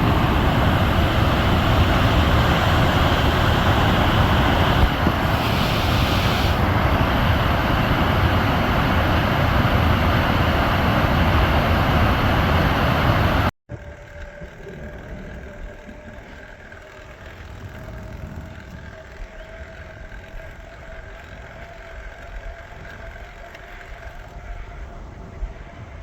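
Wind buffeting a phone microphone during a bike ride: a loud, steady rush with an unsteady low rumble. About halfway through it cuts to a much quieter outdoor background with a faint steady hum.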